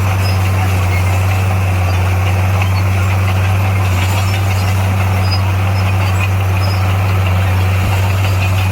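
Diesel engine of heavy earthmoving machinery running steadily at constant speed, a deep unchanging hum.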